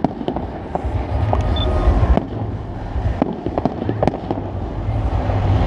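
Fireworks going off in a rapid barrage: many sharp cracks and pops at irregular intervals over a continuous low rumble of bursting shells.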